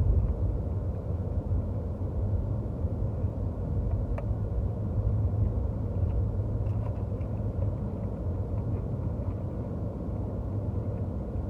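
Steady low rumble of a car heard from inside the cabin, with one faint click about four seconds in.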